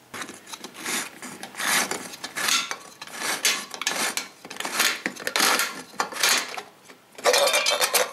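Can opener working around the rim of a metal can: a run of rasping metal strokes, roughly one a second, with a louder, longer burst near the end.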